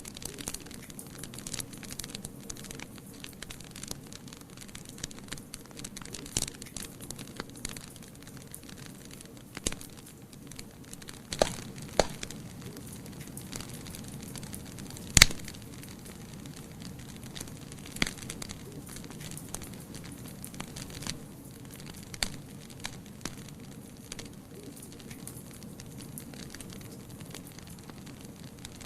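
Wood fire burning in a fireplace: a steady low rush of flames with scattered crackles and sharp pops from the burning logs, the loudest snap about halfway through.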